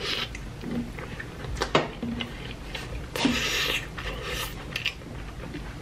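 Close-miked chewing and lip-smacking of a mouthful of chili cheese burger: scattered wet clicks, with a short hissing rush a little after three seconds in.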